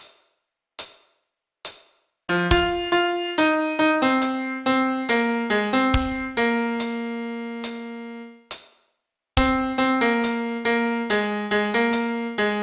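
Three short clicks about a second apart, then a piano playing a single-note melody line, one note at a time, with a brief pause about two-thirds of the way through.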